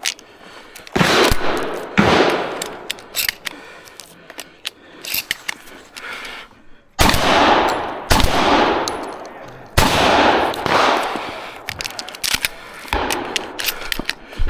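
Benelli M4 12-gauge semi-automatic shotgun firing about seven shots in uneven groups, each blast followed by a long echoing tail. Lighter sharp metallic clicks and clangs fall between the shots, from hits on a steel spinner target.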